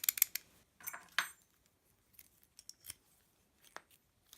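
Master Lock padlock being worked by hand: a quick run of sharp metallic clicks in the first second or so, as the shackle and body are moved and snapped, then a few faint ticks.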